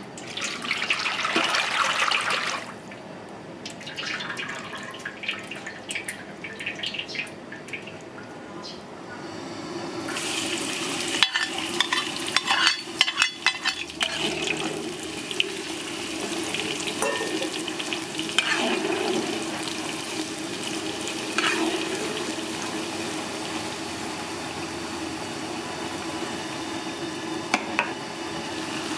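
Duck egg deep-frying in a wok of hot oil: a steady sizzle and crackle of bubbling fat, loud for the first couple of seconds, quieter for a while, then steady again from about ten seconds in. A metal ladle clicks and scrapes against the wok, most clearly between about eleven and fourteen seconds.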